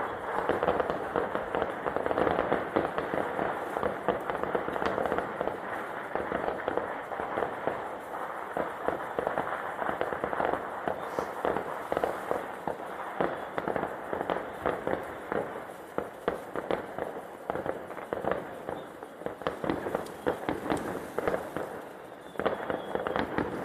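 Fireworks going off in a dense, continuous run of rapid bangs and crackling pops.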